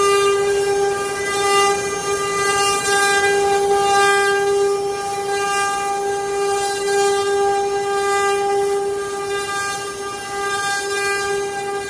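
CNC router spindle running with a steady high-pitched whine, over a hiss from the cut that swells and fades every second or two.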